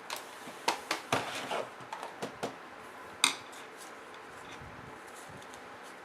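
Sharp plastic clicks and taps from the HP Pavilion G7's screen bezel being pressed back onto the display lid: a quick run of clicks in the first two and a half seconds, then one louder snap about three seconds in.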